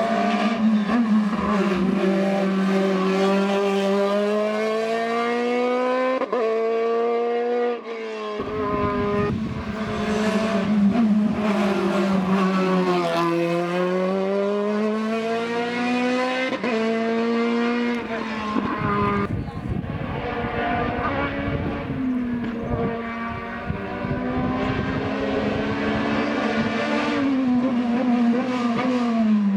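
Hillclimb race car engine at high revs, climbing in pitch through the gears with sharp drops at each gear change. About halfway through the pitch falls away and climbs again, and it is still running hard near the end.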